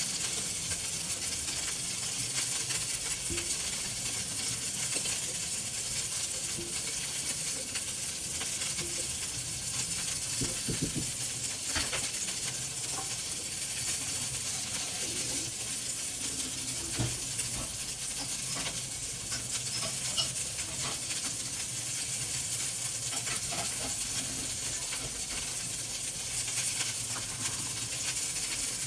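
Food sizzling in a frying pan, a steady hiss with a few light clicks and knocks, like a utensil against the pan.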